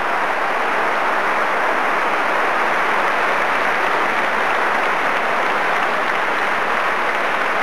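Large audience of congress delegates applauding: a dense, steady mass of clapping that holds at full strength throughout.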